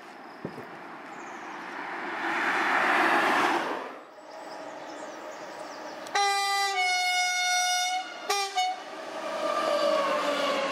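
A rushing passing noise swells and fades in the first few seconds. Then a freight train's locomotive sounds its horn, one long blast of about two seconds and a short second one, and the container train rumbles past.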